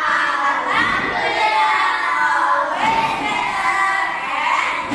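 Singing by a group of voices: long, held notes that glide up and down.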